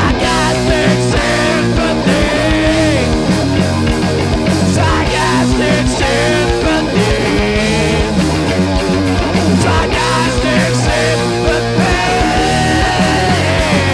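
A punk/grunge rock band playing live and loud: electric guitar over bass and drums, with a wavering melodic line above.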